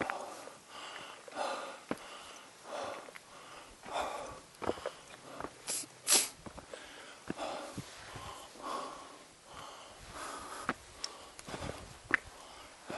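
A hiker's heavy breathing close to the microphone, a regular puff about every second and a half, from the effort of climbing a rocky mountain trail. Short sharp clicks of footsteps on stones come between the breaths, and one louder puff comes about six seconds in.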